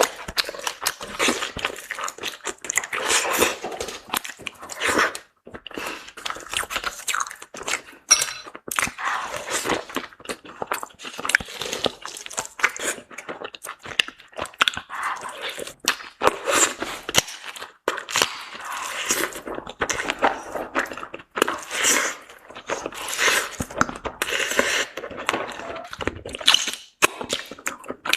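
Close-miked eating: a person chewing and biting into crunchy food, with irregular crunches and wet chewing all through.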